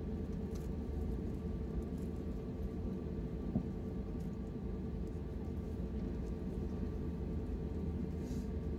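Airbus A320neo cabin noise heard from inside, over the wing: a steady low rumble of the CFM LEAP-1A engines and rushing airflow with faint steady tones. A single small click about three and a half seconds in.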